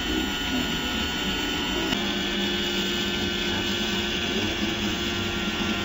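Radio-controlled Wedico Cat 966 scale wheel loader running, its electric motors and hydraulic pump giving a steady mechanical whine. A steadier hum comes in about two seconds in.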